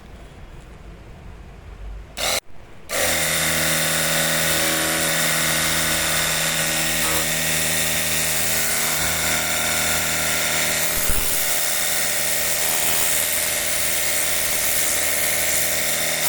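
Cordless 48V battery pressure washer's motor and pump switched on: a short burst about two seconds in, then running steadily with an even pitched whine.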